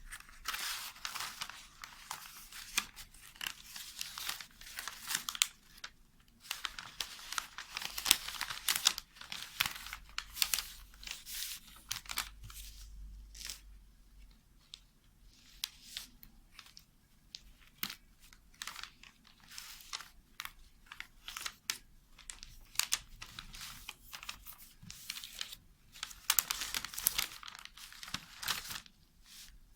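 Adhesive sticker being peeled off its backing paper, crackling and crinkling in irregular bursts.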